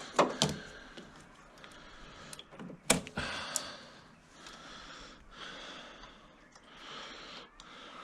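Several sharp clicks and knocks of hand-held parts and tools, the loudest about three seconds in, followed by soft rustling handling noise. No engine is running.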